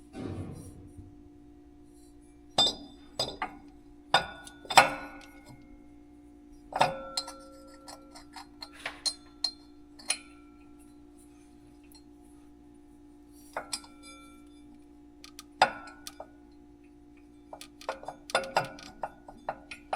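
Hand tools and metal parts clinking and tapping against metal, in about a dozen scattered strikes, some with a brief ring, over a faint steady hum.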